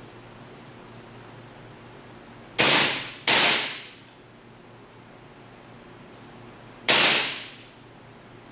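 WE M4 CQBR open-bolt gas blowback airsoft rifle, running on green gas, fires three single shots: two in quick succession a few seconds in and a third about three and a half seconds later. Each shot is a sharp report that rings away over most of a second. A few faint clicks come before the first shot.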